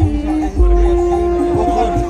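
Loud music from a large outdoor sound system: long held melodic notes over heavy, deep bass hits.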